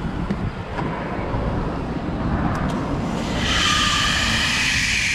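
Water rushing and hissing through the irrigation main line as it is recharged, starting suddenly about three seconds in as a steady, whistling hiss, over a low rumble.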